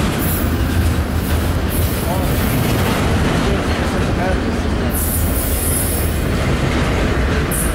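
Freight train rolling past close by: a steady rumble of steel wheels on rail, with a few faint wheel squeals in the middle and stretches of high hiss.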